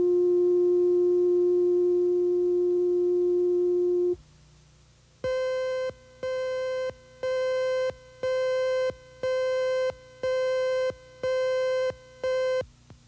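Videotape countdown leader tones: a steady line-up tone for about four seconds, then, after a short gap, eight higher buzzy beeps, one a second, each lasting most of a second, marking the countdown numbers.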